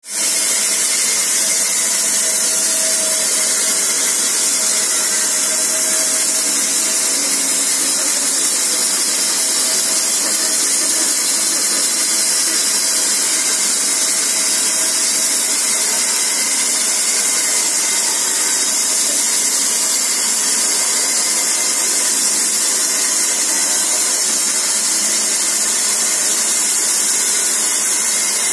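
Homemade horizontal band sawmill running steadily, a continuous loud hiss with no change.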